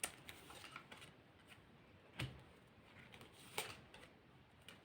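Faint taps and rustles of tarot cards being handled and laid down, the clearest about two seconds in and another about a second and a half later.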